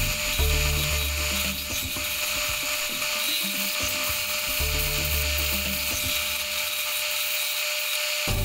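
Einhell belt-and-disc sander running, its sanding disc grinding a small piece of wood held against it, with a steady high whine and hiss.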